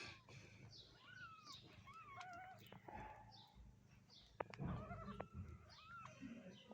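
Cats meowing faintly: several short, high meows, one after another.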